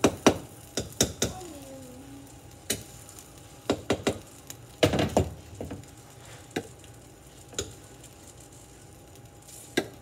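Metal kitchen knife clicking and scraping against the cooking pot and cutting board as cubed spam is knocked into the pot: a dozen or so sharp clinks, a quick cluster about five seconds in, over a faint sizzle from the hot pot.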